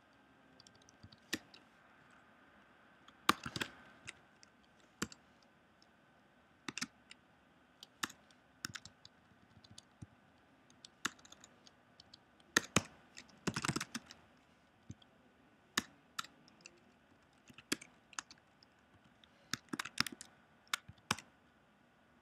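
Typing on a computer keyboard: irregular single keystrokes and short quick runs of clicks, with pauses between them.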